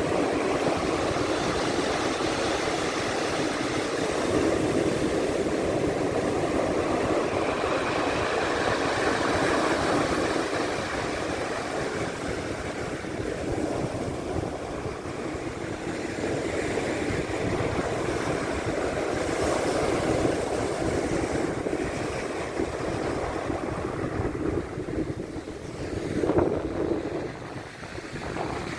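Sea surf washing in, a steady rushing that swells and eases, with wind on the microphone. One wave comes in louder about 26 seconds in, then it quietens briefly.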